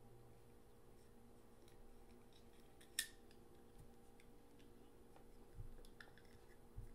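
Near silence with faint handling of a clarinet reed, metal ligature and mouthpiece: one sharp click about halfway through and two soft thumps near the end, as the reed is slid into place under the ligature.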